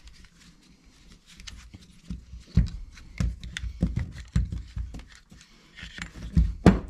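Metal handling clatter from a folding hex key set and an Arctic Cat 700 power valve housing while an Allen bolt is loosened: irregular small clicks and knocks, the louder knocks coming from a little past two seconds in.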